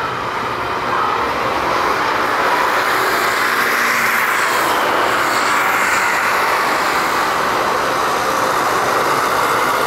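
Jet airliner engines: a loud, steady rush of noise that swells slightly through the middle.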